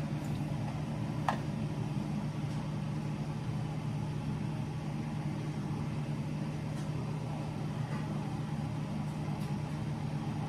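Steady low mechanical hum, with a faint click about a second in.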